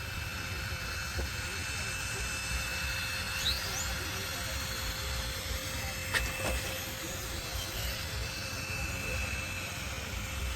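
Steady background noise with a low rumble and a faint constant hum, a brief rising whine about three and a half seconds in and a sharp click about six seconds in.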